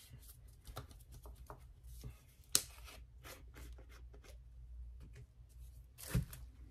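A nearly empty plastic bottle of acrylic craft paint squeezed and dabbed against a gel printing plate: a run of small crackling clicks as the paint sputters from the nozzle, with one sharper click about two and a half seconds in and a duller knock near the end.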